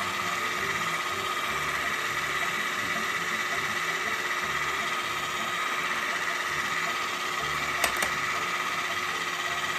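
KitchenAid electric hand mixer running steadily on high, its beaters whipping heavy cream in a bowl as the cream thickens. Two sharp clicks come about eight seconds in.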